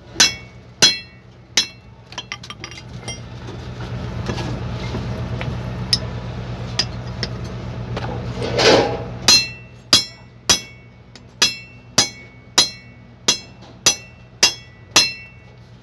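Hammer blows on a steel punch set against the yoke of a truck propeller shaft, driving out the worn cross joint's bearing cups. Sharp ringing metal strikes: three near the start, a heavier duller knock about two-thirds of the way through, then a regular run of about ten blows, roughly one and a half a second. A steady low hum runs underneath.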